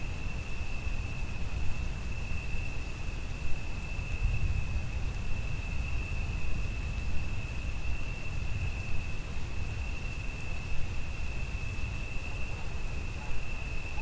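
Crickets calling in a continuous, even, high-pitched trill, over a steady low rumble and a faint hiss of rain.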